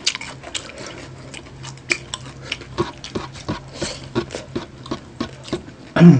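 Close-miked eating sounds: irregular wet chewing and lip smacks from people eating crispy pork knuckle with their fingers, over a faint steady hum. A short, much louder low sound comes near the end.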